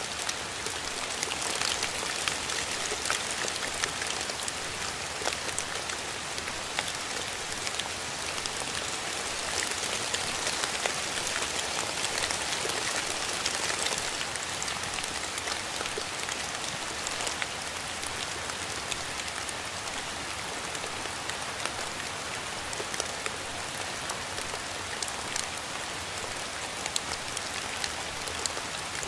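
Steady rain falling: a dense hiss with many separate drops ticking through it, a little heavier for the first half.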